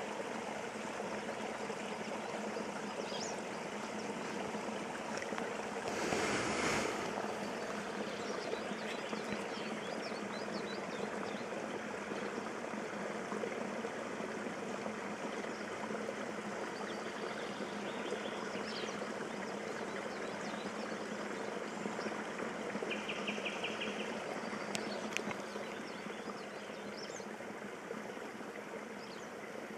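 Water running and trickling steadily, with faint bird chirps. About six seconds in, a louder rush of noise lasts about a second.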